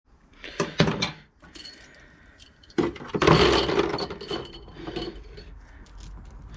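Small metal brake caliper hardware, pins and bolts, clinking and rattling as it is handled and put into a plastic tub. There is a short clatter about a second in and the loudest, longest rattle about three seconds in.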